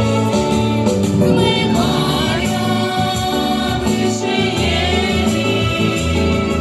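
A choir singing a song in several voices, with sustained notes over steady instrumental accompaniment.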